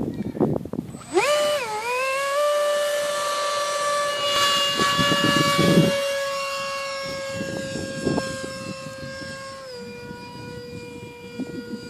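Electric ducted-fan motor of a Starmax F-35 model jet throttling up about a second in with a quickly rising whine, then holding a steady high whine in flight. The pitch steps down a little near the end.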